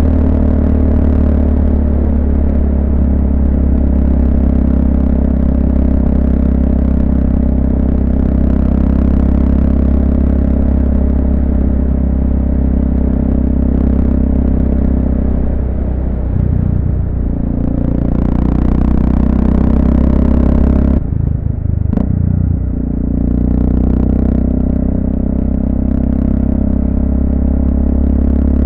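Honda FMX650's single-cylinder engine running steadily under way. Its pitch dips and recovers about halfway through, and the sound thins abruptly for a couple of seconds about two-thirds of the way in.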